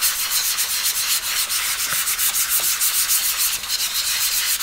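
Fine 400-grit sandpaper rubbed by hand over a hard foam board in quick, even back-and-forth strokes, a steady scratchy hiss, smoothing the board's surface very fine.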